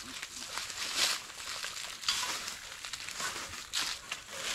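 Irregular rustling and crackling of dry vegetation being pushed through, with sharper rustles about once a second.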